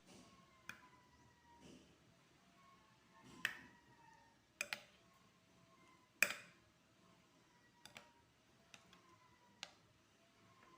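Near silence broken by a handful of faint, sharp clicks or taps at irregular intervals, the loudest a little past halfway.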